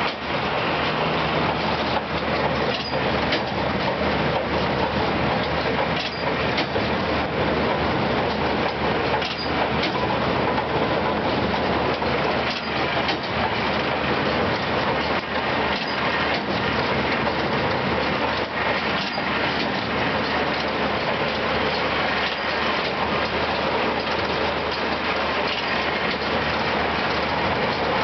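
Hesston 4910 large square baler and the tractor driving it running, a loud, steady mechanical clatter with faint irregular ticks.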